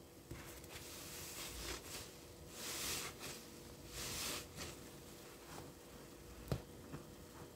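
A soap-soaked sponge squeezed by hand in thick suds: three hissing, sudsy squelches about a second and a half apart, with softer squishes between. A single sharp tap sounds near the end.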